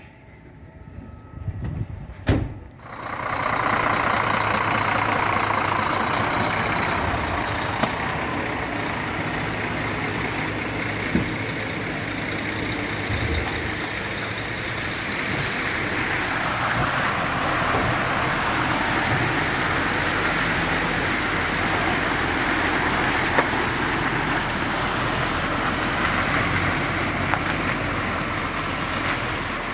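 Loaded grain truck's diesel engine running with a steady rushing noise, starting about three seconds in after a brief quieter stretch with a single knock.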